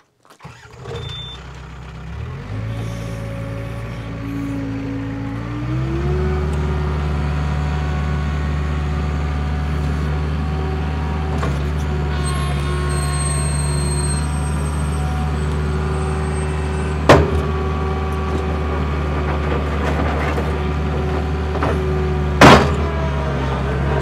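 New Holland L565 skid steer's turbocharged four-cylinder diesel starting and idling, then throttled up in two steps to a steady higher-speed run as the loader drives and raises and lowers its bucket. Two loud, sharp clunks in the second half.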